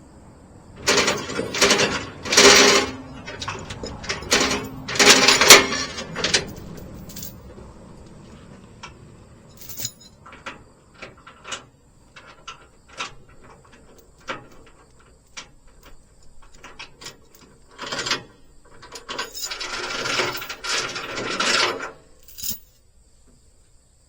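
Metal clanking and rattling from trailer tie-down chains and hardware being handled while the load is taken off, in three loud bursts with scattered single clinks between.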